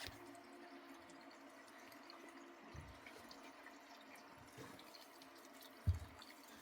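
Water leaking from a hot water heater's valve, faintly trickling and dripping into a bowl below it. Two soft low thumps, one about halfway through and one near the end.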